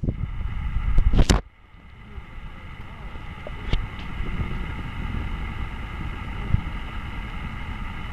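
Steady hum of a boat's motor with wind and water rumble on the microphone, broken about a second in by a loud brief knock of handling on the boat.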